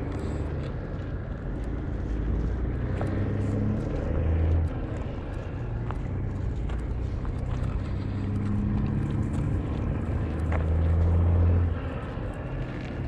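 A motor vehicle's engine running, twice rising in pitch and level and then dropping off suddenly, with a few faint clicks.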